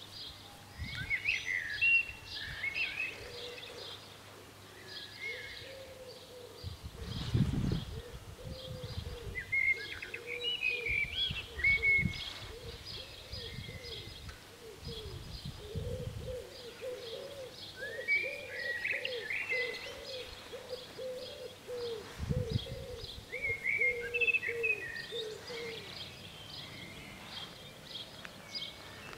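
Several birds singing and calling: steady quick high chirps, warbling song phrases every few seconds, and a run of quick low-pitched calls in the second half. A few brief low rumbles come and go in between.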